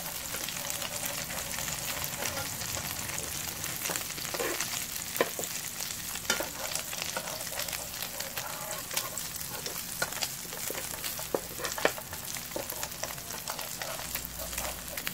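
Egg-and-vegetable patties frying in oil in a nonstick pan: a steady sizzle with scattered sharp crackles and pops, while a metal turner now and then pushes at the batter against the pan.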